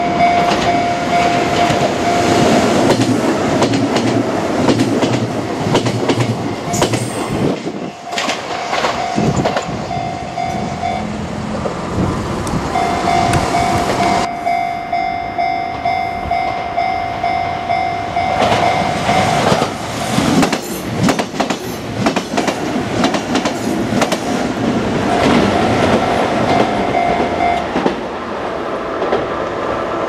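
Kintetsu trains running over the level crossing, wheels clattering on the rails, while the crossing's electronic warning bell rings on and off. The bell drops out for a second or two a little past a third of the way in, and for several seconds just past the middle.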